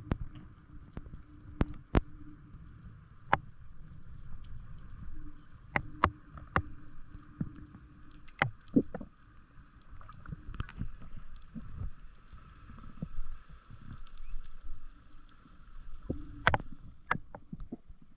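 Underwater sound picked up by a diver's camera: a steady low rush of water with a faint hum, broken by many irregular sharp clicks and knocks.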